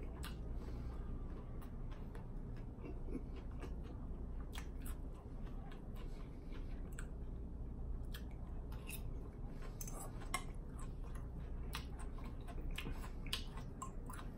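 Close-up chewing of crisp salad greens: scattered small crunches and wet mouth clicks, with a sharper click about ten seconds in, over a low steady hum.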